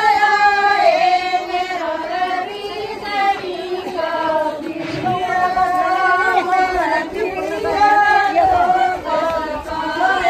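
A group of women singing a traditional song together in high voices, in long held phrases with short breaks between them.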